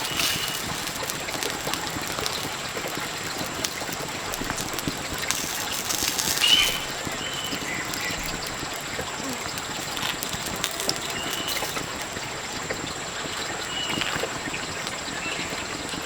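Steady outdoor background hiss with a few short, high bird chirps scattered through it and a brief louder rustle about six and a half seconds in.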